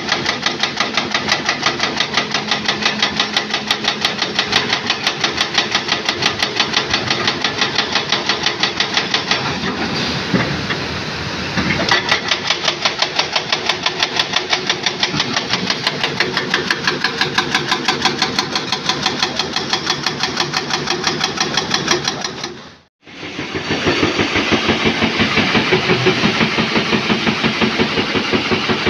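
A heavy engine running steadily with a rapid, even pulsing beat, easing slightly about a third of the way in and cutting out completely for a moment about three-quarters of the way through before resuming.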